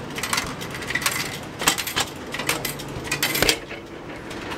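Food vending machine delivering a small metal can: a string of sharp metallic clinks and knocks as the can is handled in the delivery bin and pulled out through the push flap.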